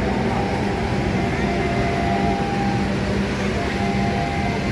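A shunting passenger train, pushed by a CC 206 diesel-electric locomotive, rolling slowly past: a steady low engine hum with the run of coaches on the rails, and faint high tones that come and go.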